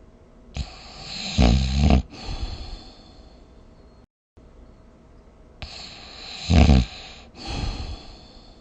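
A sleeper snoring: two loud, rattling snores about five seconds apart, each followed by a softer breath. There is a brief cut to silence between them.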